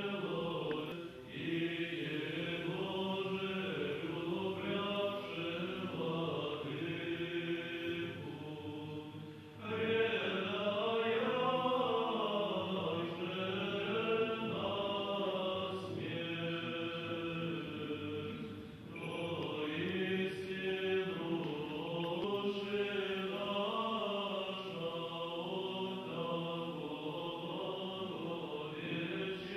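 Orthodox liturgical chant sung by a male monastic choir in several voices, with brief pauses between phrases.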